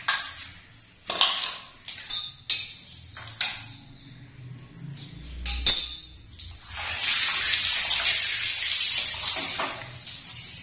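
Chrome bib cock and shower fittings being handled: a series of sharp metallic clinks and knocks, then a steady rustle for a couple of seconds from about seven seconds in as the hands work the fitting.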